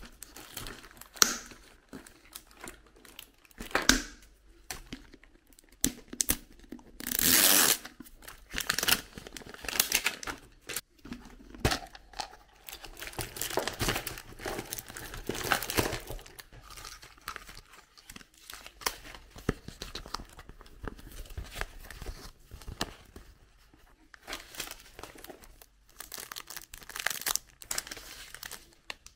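Hands unpacking a plastic surprise egg and its wrapped contents: irregular clicks and knocks of hard plastic, and crinkling and tearing of plastic wrappers. The loudest is a tear lasting about a second, about seven seconds in.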